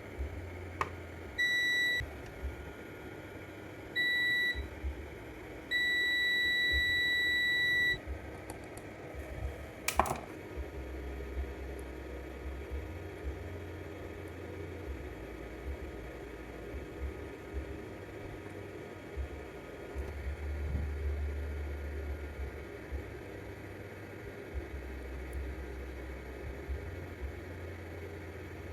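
Electronic beeper sounding a high steady tone: two short beeps, then one longer beep of about two seconds. A single sharp click follows a couple of seconds later, over a low background hum.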